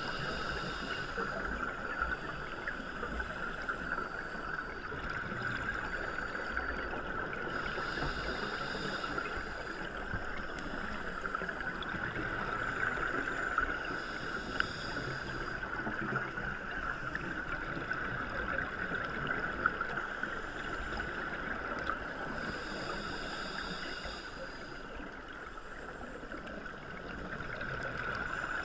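Underwater sound picked up through a dive camera's housing: a steady muffled hiss, with scuba regulator exhaust bubbles gurgling up every several seconds.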